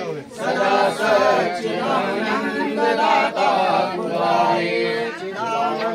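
Several voices, men and women, chanting Hindu mantras together in a continuous, unbroken chant.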